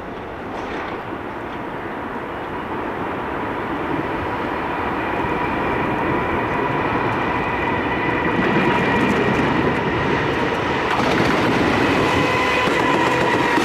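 Freight train approaching, its rumble growing steadily louder, with a steady high whine from the electric locomotive's traction motors that strengthens in the second half.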